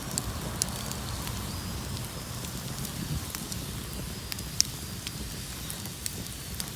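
Open bonfire burning: scattered sharp crackles and pops over a steady low rumble of the flames, the loudest pop about four and a half seconds in.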